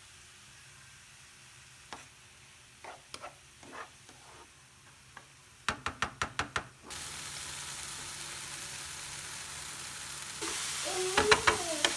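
A quick run of about six clicks, then a steady sizzle of food frying in a pan that grows louder near the end, with a few squeaky scrapes over it.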